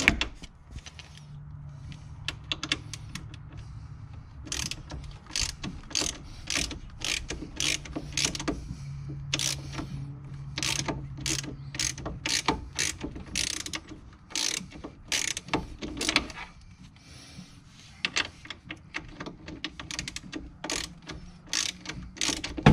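Socket ratchet clicking in short strokes as a 13 mm deep socket turns the lower mounting bolt of a front shock absorber from below. The clicks come in irregular runs, about one or two a second, with a few pauses.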